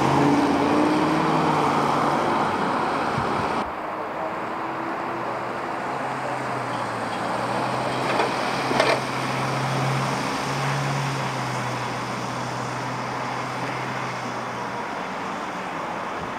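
Traffic noise on a rain-wet street: tyre hiss from passing traffic, then, after a cut about four seconds in, the steady low hum of an idling vehicle engine, with a couple of short knocks near the middle.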